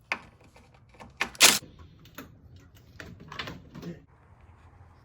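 A few scattered clicks and knocks of hand tools and parts on metal, the loudest a sharp clank about a second and a half in.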